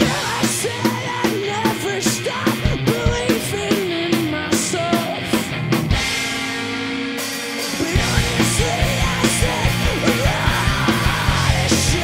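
Rock band playing live, with electric guitars, bass and drums under a shouted vocal line. About six seconds in the bass and drums drop out for about two seconds, leaving a held note, then the full band comes back in.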